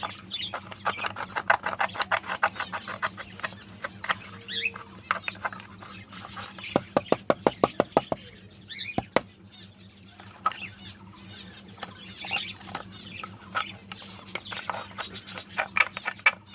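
Scraping and scratching inside a wooden nest box as it is cleaned out, in uneven strokes with a fast run of about a dozen scrapes around seven seconds in. Small birds chirp briefly now and then.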